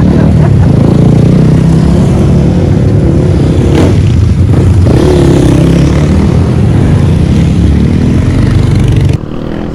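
A group of motorcycles, dirt bikes among them, riding past one after another close by, engines rising and falling in pitch as each goes by, with the loudest passes about four and five seconds in. Near the end the sound cuts abruptly to a quieter, steadier engine hum.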